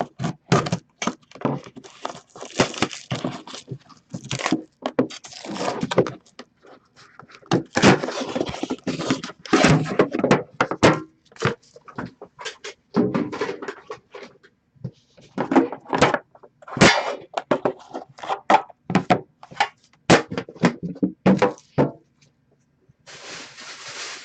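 A sealed trading-card tin being unwrapped and opened by hand: a run of knocks, scrapes and packaging rustle, with a quieter patch near the end.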